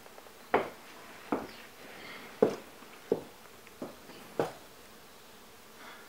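Footsteps on a hard floor: six steps, a little under a second apart.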